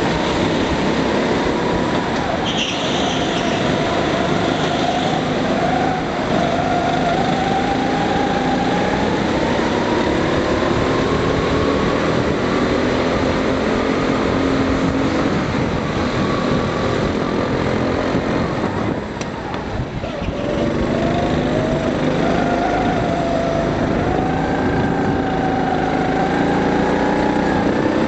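Go-kart engine running at racing speed, its pitch rising and falling as the kart accelerates and backs off through the corners. The engine sound briefly drops away about two-thirds of the way through, then picks up again.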